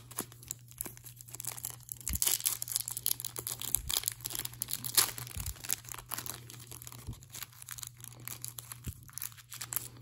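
Clear plastic wrapper crinkling and tearing as it is worked off a pack of trading cards, a run of sharp crackles that is loudest about five seconds in.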